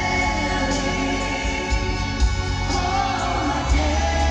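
Live band performance of a slow pop ballad: a male lead singer with female backing vocalists singing over a band with violins, electric guitar, drums and keyboards, recorded from the audience.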